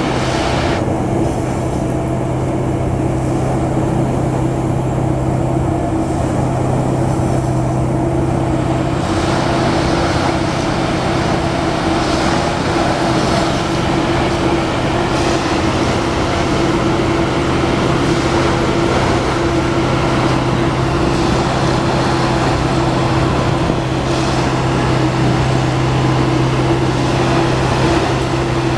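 Diesel engine of a Plasser & Theurer 09-16 CSM rail tamping machine running steadily with a constant low drone. About nine seconds in, a louder hiss of working machinery joins it and carries on.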